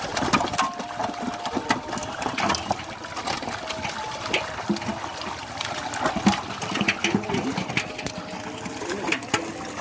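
A crowded mass of Thai pangasius (striped catfish) thrashing in the shallow water of a hauled-in seine net. It makes a continuous wet churning, broken by many quick, irregular splashes and slaps.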